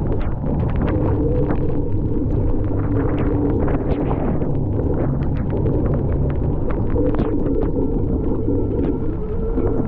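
Steady low rumble of riding with wind buffeting the microphone, a few pitched tones shifting underneath and scattered small clicks.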